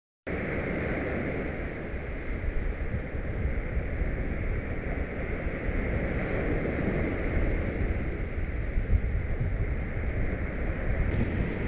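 Wind blowing across a kite buggy's onboard camera microphone, starting abruptly just after the beginning and rumbling unevenly in gusts throughout.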